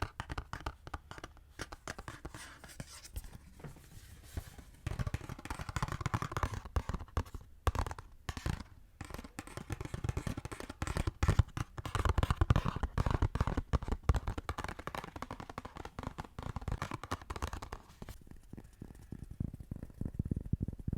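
Close-miked ASMR hand sounds: fingers scratching, scraping and tapping on an object, making a dense run of quick crackles over soft low knocks. The crackly top fades out near the end, leaving only the soft knocks.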